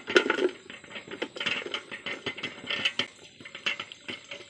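Sliced bamboo shoots tipped from a plastic bucket into a metal cooking pot, the pieces clattering and clinking against the pot irregularly. The loudest knocks come right at the start.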